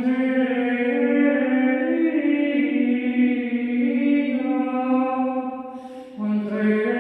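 A woman's solo voice singing a wordless, chant-like improvised melody: long held notes that slide slowly between pitches. About six seconds in she breathes and starts a new, lower phrase.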